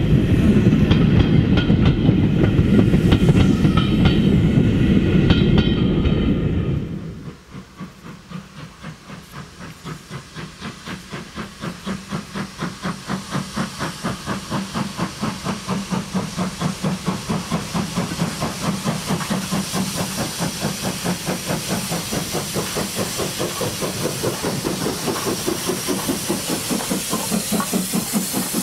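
Coaches of a passing train rumble and clatter over the rail joints, with high squealing from the wheels. About seven seconds in this gives way to BR Standard Class 2 2-6-0 No. 78018 approaching: its two-cylinder exhaust chuffs in an even beat of about four a second, growing louder, over a steady hiss of steam.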